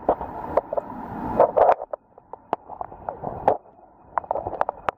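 Muffled, gurgling water of a stream heard from a submerged camera, with irregular sharp clicks and knocks throughout. The sound drops away briefly about two seconds in and cuts off suddenly at the end.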